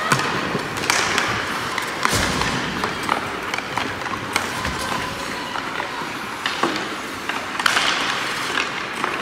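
Ice hockey play on a rink: skate blades scraping and hissing across the ice in several bursts, with sharp clacks of sticks and puck and dull thuds.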